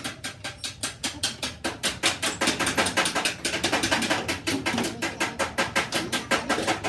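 Rapid, even hammer strikes on metal, about seven a second, as in tapping out a car body panel.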